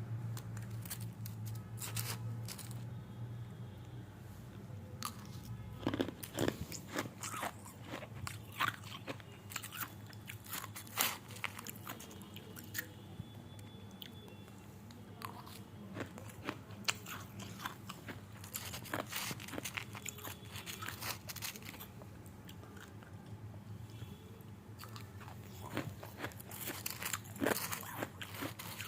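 Irregular crunching and sharp clicks, scattered through, over a steady low hum.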